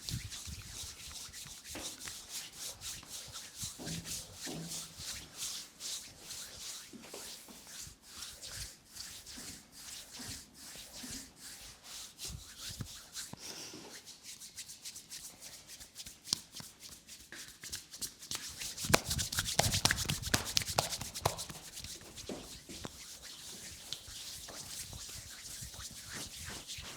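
Massage hands rubbing and stroking over skin in a back massage, a fast run of short brushing strokes that grows louder for a couple of seconds about two-thirds of the way through.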